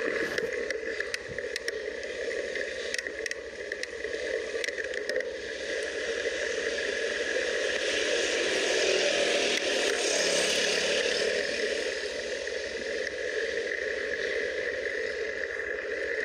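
Riding noise from a Seli XLR8 22-inch drop-bar bicycle on a wet road: a steady rush of wind over the handlebar-mounted phone's microphone mixed with tyre noise. There are scattered clicks and rattles in the first few seconds, and the rush swells for a few seconds in the middle.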